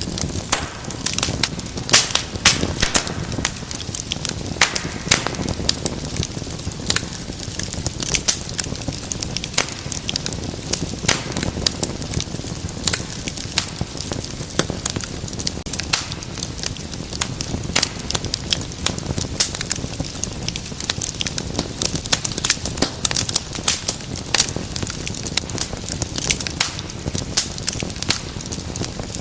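Wood fire crackling: frequent irregular pops and snaps over a steady low rumble of flame.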